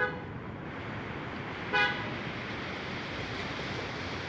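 A vehicle horn tooting briefly twice, once right at the start and again about two seconds in, over a steady rushing noise.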